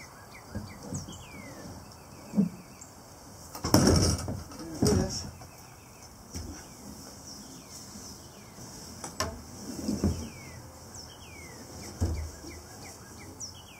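Jackson kayak knocking and clattering against the truck's roof rack and the Rhino Rack T-Load arm as it is pulled down off the roof by a strap. The loudest clatter comes about four seconds in, with another knock just after, a sharp click a little after nine seconds, and thumps near ten and twelve seconds as the boat settles tilted on the arm.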